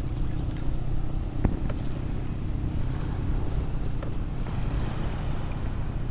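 Steady low rumble from a small boat on open water, with a few light knocks, the clearest about a second and a half in.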